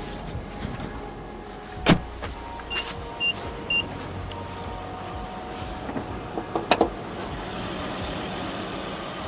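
A Nissan Fuga Hybrid's bonnet being opened: a sharp clunk about two seconds in as the release lever is pulled, three short high beeps from the car about half a second apart, then a few clicks and a knock near seven seconds as the latch lets go and the bonnet is lifted, over a steady low hum.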